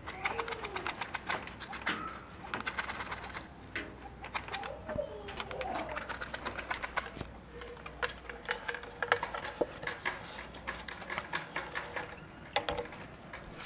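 Quail dust-bathing in a tray of sand: rapid scratchy ticking and rustling of sand and grit, with a few soft calls sliding in pitch from the birds. A louder click comes near the end.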